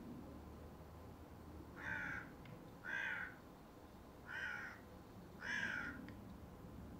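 A bird calls four times, each call about half a second long and a second or so apart.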